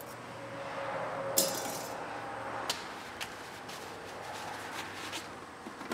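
Small loose metal parts and tools clinking as they are handled on a wooden pallet: one sharp, ringing clink about a second and a half in, then a few lighter clicks and taps.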